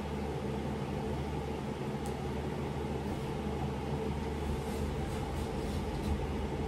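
A steady low mechanical hum with several fixed low tones under an even hiss, with a few faint brushing sounds.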